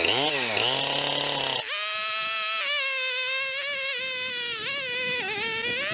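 Husqvarna two-stroke chainsaw running at a low throttle with a quick rev. About a second and a half in it is opened to full throttle and cuts into a thick white oak slab, its high, steady note sagging slightly under load near the end.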